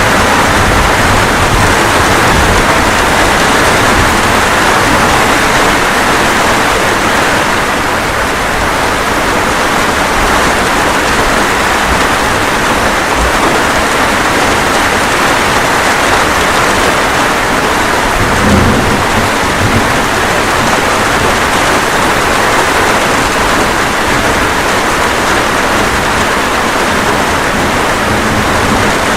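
Steady heavy rain, with one short low rumble of thunder about two-thirds of the way through.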